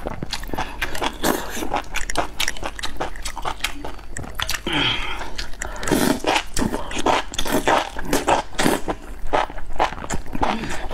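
Slurping and chewing of spicy enoki mushrooms in chili broth, close to the microphone: a dense run of short, wet mouth noises as bundles of the strands are drawn in and bitten.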